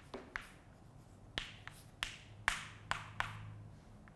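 Chalk tapping and scratching on a blackboard as a word is written out: a series of about eight sharp clicks, some trailing into short scratchy strokes.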